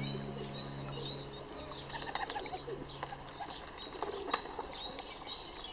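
Small birds chirping, a constant scatter of short high calls, with a few sharp clicks about two to four seconds in.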